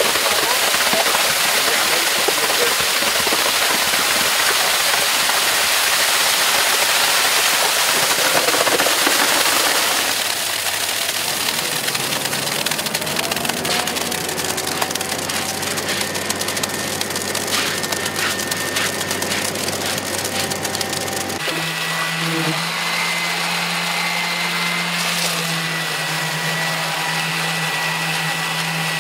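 Wet concrete pouring down a chute into a footing hole, a gritty hiss for about the first ten seconds. When the pour stops, a steady low engine hum runs, and about 21 seconds in a higher steady motor hum takes over.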